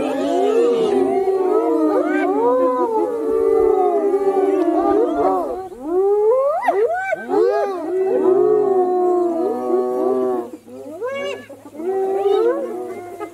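A pack of spotted hyenas calling together: many overlapping calls that rise and fall in pitch, with a brief lull a little before the end.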